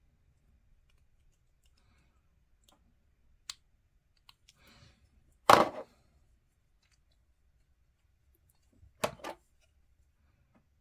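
Hobby tools and a small plastic part being handled on a desk: faint scattered clicks, then two sudden louder knocks about five and a half and nine seconds in, as tools are put down and picked up.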